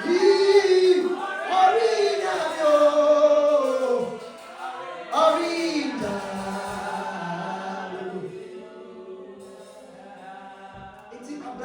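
Voices singing slow, held notes together, like a congregation joining in a short chorus, loudest in the first few seconds and then dying away.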